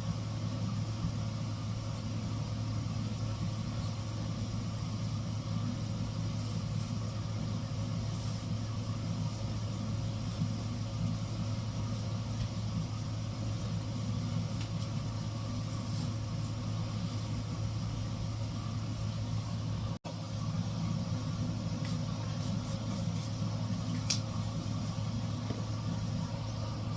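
A household appliance motor running with a steady low hum, broken by a brief drop-out about twenty seconds in.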